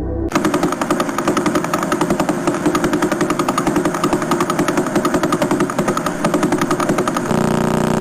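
A 'space sound' recording played back, a rapid buzzing pulse with many beats a second. About seven seconds in it changes to a steadier, even drone.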